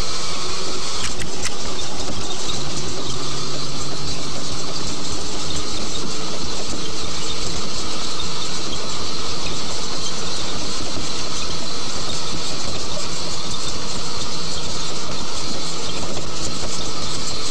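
A moving train running steadily: a continuous rumble and rattle of wheels on the rails.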